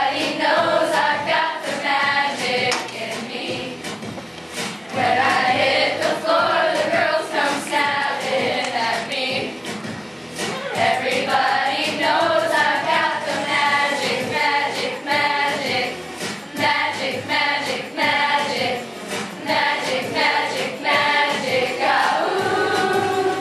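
Chorus of young voices singing a pop-song medley together over a steady beat, with brief dips between phrases.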